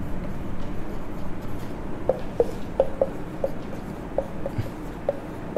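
Marker pen writing on a whiteboard: short squeaks of the tip on the board, a few each second, starting about two seconds in, over a steady low room hum.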